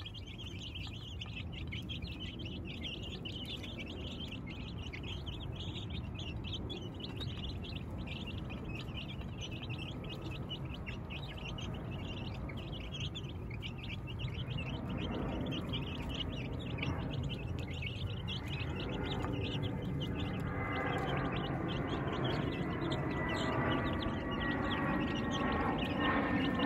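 A flock of two- and three-week-old chicks peeping continuously, many at once, while feeding. In the last ten seconds a humming tone with several pitches, falling slowly, rises underneath and grows louder.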